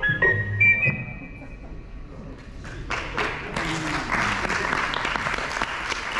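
The last notes of a 1960s TV commercial's music end within the first second. After a short lull, an audience in a large room applauds from about three seconds in.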